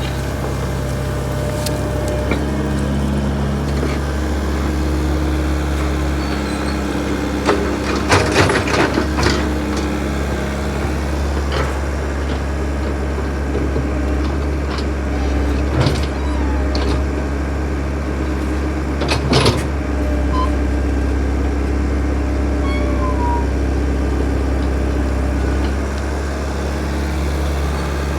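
Backhoe engine running steadily, with several sharp knocks and clanks over it: a cluster about eight seconds in and single ones near sixteen and nineteen seconds.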